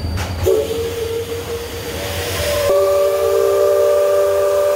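Riverboat steam whistle: one steady tone with a hiss of escaping steam, then a louder chord of several notes from about two and a half seconds in, held to the end.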